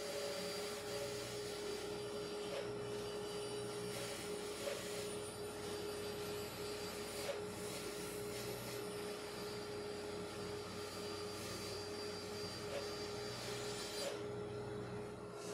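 Band saw running steadily while its blade cuts a curve through a plywood blank, with a constant motor hum under the cutting noise.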